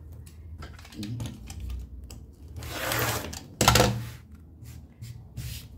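Scattered light clicks and rustling as patchwork fabric pieces and cutting tools are handled on a cutting mat, with a swell of rubbing about two and a half seconds in and one sharp knock just after it.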